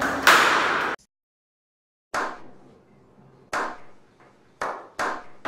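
Hand clapping that cuts off after about a second, then, following a second of silence, a slow clap: four single hand claps spaced a second or so apart, each ringing out with an echo.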